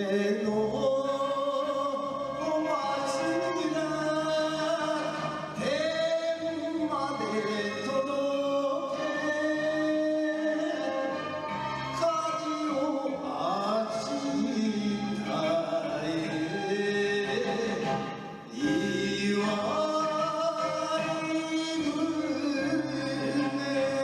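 A man singing an enka song with instrumental backing, the voice holding long, wavering notes.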